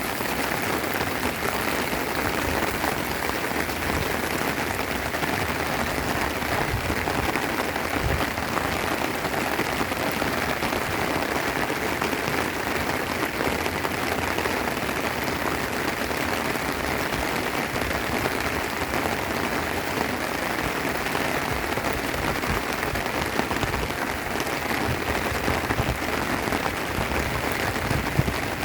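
Steady rain falling, an even patter with no letup.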